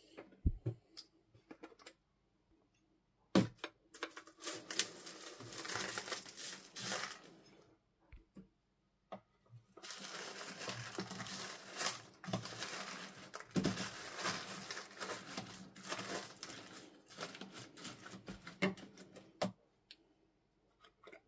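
Cut plastic drinking-straw pieces clicking and crackling against each other and the plastic tub as they are stirred through slime with a silicone spatula. It comes in two long spells of dense crackling, the second starting about ten seconds in, with a few separate clicks before.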